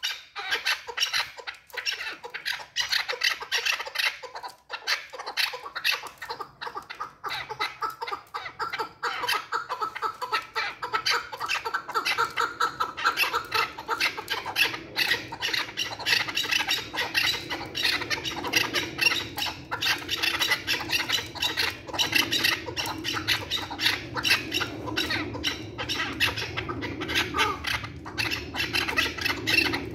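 Chukar partridge calling: a rapid, unbroken run of short chuk notes that goes on throughout.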